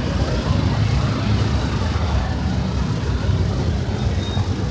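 Steady traffic noise of a busy city street: vehicle engines running with a low rumble.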